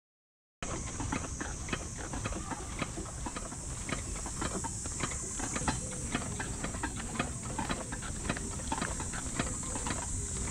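Footsteps along a dirt path with the clicks and knocks of a carried hard cooler and its swinging tag, over a steady high hiss. The sound cuts in suddenly about half a second in.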